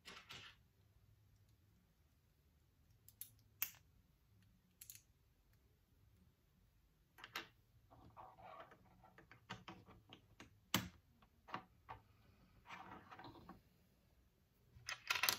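Small plastic building bricks clicking and clattering on a desk as pieces are picked out and fitted together: faint scattered clicks, a couple of short rattling runs, and a quick cluster of clicks near the end.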